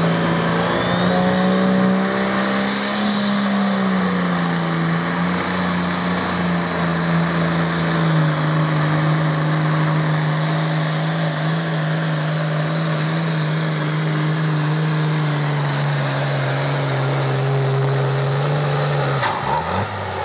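Heavy farm-class pulling tractor's diesel engine under full load, dragging the pulling sled: a deep, steady engine drone with a high whistle that climbs steeply over the first few seconds and then holds. The engine note sags slightly a few seconds in and drops lower near the end, then breaks off abruptly about a second before the end.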